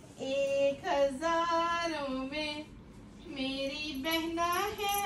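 A young child singing a simple tune in long held notes, two phrases with a short pause between them.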